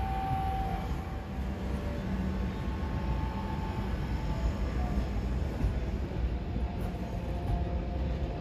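ÖBB Nightjet passenger coaches, including bi-level sleeping cars, rolling slowly past as the trainset is pushed into the platform. The wheels rumble steadily on the rails, with faint high squeals coming and going.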